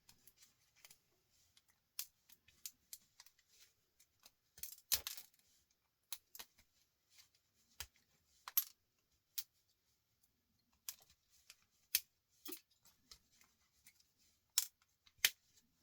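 Irregular clicks and clinks of small metal and plastic parts as a small electrical item is taken apart by hand for its brass and wire.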